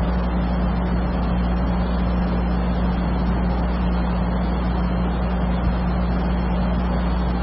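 Steady electrical hum with a low buzz and an even background hiss, unchanging throughout, the noise floor of the lecture recording.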